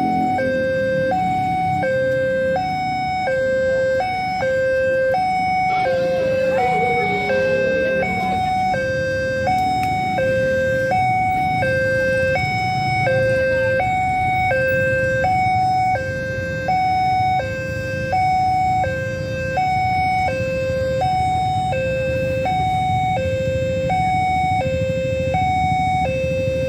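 Electronic warning alarm of a railway level crossing sounding continuously, alternating back and forth between a lower and a higher tone, as the crossing closes ahead of an approaching train. A low rumble runs underneath.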